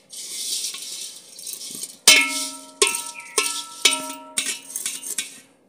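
Steel ladle stirring dry vermicelli in a brass pot: a rustling scrape for about two seconds, then the ladle knocks against the pot about six times, each knock leaving the brass ringing.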